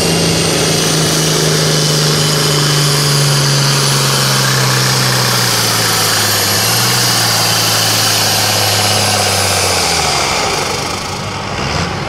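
Turbocharged diesel engine of an International Harvester farm tractor at full throttle, pulling a weight-transfer sled, with a high turbo whistle over it. The engine note falls slowly as the sled's weight builds and the engine lugs down under the load, then the engine backs off about ten seconds in as the pull ends.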